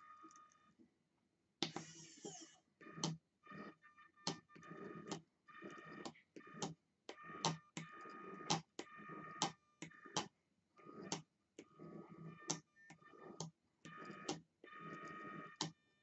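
Hobby rotary servos in a robotic drawing arm whining in short, start-stop bursts as they move the pen, each move beginning and ending with a sharp click, with brief pauses between moves.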